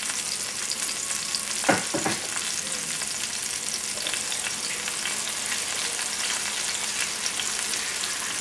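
Flour-coated bone-in chicken thighs frying in oil in a stainless steel sauté pan over a high gas flame: a steady sizzling hiss as the meat browns. A brief murmur comes about two seconds in.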